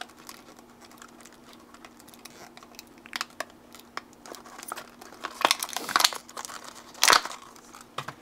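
A small cardboard servo box and its plastic packaging being opened by hand: scattered clicks and crinkling that grow busier and louder in the second half, with one sharp crackle near the end.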